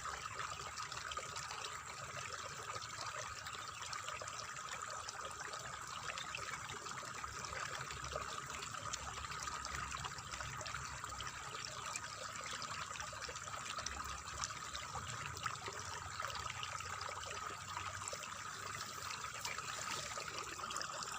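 Water trickling and splashing steadily in a rice paddy, an even, unbroken flow.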